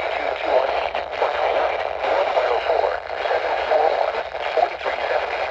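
NOAA Weather Radio broadcast voice heard through a weather radio receiver: muffled, narrow-sounding speech over a steady bed of static hiss.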